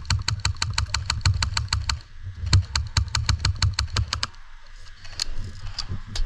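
Airsoft gun firing on full auto at about ten shots a second, in two bursts of about two seconds with a short pause between, followed by a few scattered single shots.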